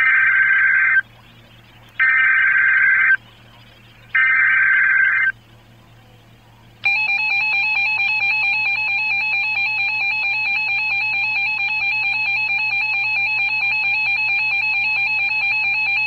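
Emergency Alert System tones from a NOAA weather radio's speaker: three short bursts of the buzzing digital SAME data header, about a second each and a second apart, then the steady two-tone EAS attention signal sounding for about nine seconds. They signal an incoming tornado warning.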